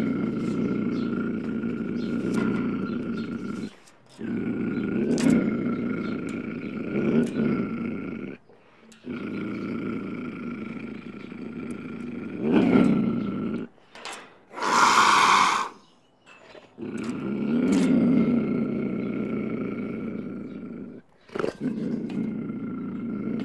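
Mountain lion growling: long, low, rumbling growls broken by short pauses every few seconds, with one short, louder, higher-pitched burst about fifteen seconds in.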